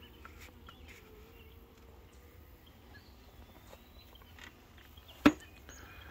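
Honeybees buzzing faintly around an opened nuc hive, with light clicks of the hive covers being handled. One sharp knock, the loudest sound, comes about five seconds in.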